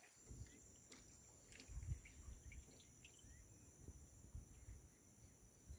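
Near silence outdoors: a faint, steady high insect drone with a few faint bird chirps, over some low rumble on the microphone.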